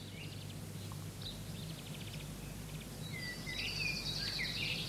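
Background birdsong: several birds chirping and trilling, with a few sliding whistled notes about three seconds in, over a steady low hum.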